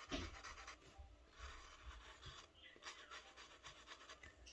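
Near silence with faint, scattered rubbing and rustling.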